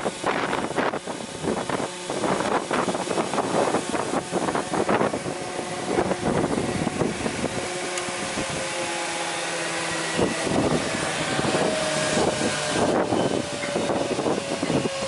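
STEHLE spindle moulder running, with wind gusting on the microphone. In the second half a whine falls slowly in pitch as the spindle motor is switched off and winds down.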